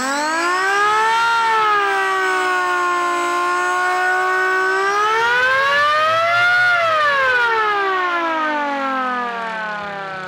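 3D-printed rotary siren wailing. Its pitch climbs as the rotor spins up, holds about level, rises again to a peak about seven seconds in, then winds down in a falling wail.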